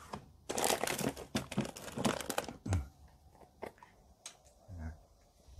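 Crinkling and rustling of plastic packaging for about two seconds, followed by a few light clicks and a soft knock, as the shrimp-paste container is opened and handled off-camera.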